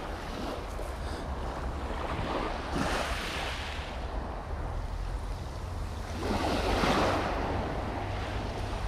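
Sea waves washing in, two swells building and fading about three and six and a half seconds in, over a steady low rumble of wind on the microphone.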